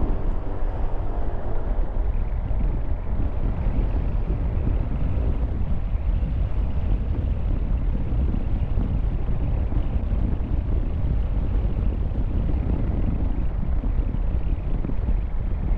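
Steady low rumble of wind on the microphone of a moving bicycle, mixed with passing road traffic.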